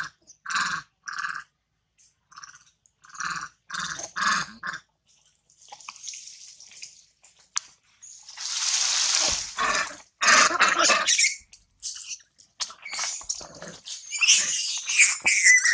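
Long-tailed macaques calling: a run of short barking calls in the first few seconds, a loud harsh rasping burst about eight seconds in, and high squealing screams near the end.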